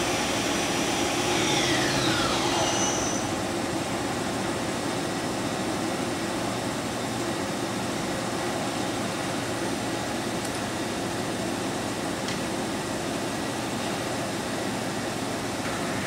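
The spindle of a 1986 Kuraki KV-1000 vertical machining center whines down in pitch over about two seconds as it slows from speed, over the machine's steady running hum. Two faint clicks follow later.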